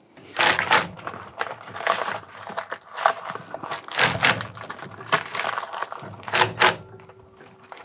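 Packaging being handled as parts are unwrapped: irregular crinkling, rustling and crackling of wrapping material, in short separate bursts.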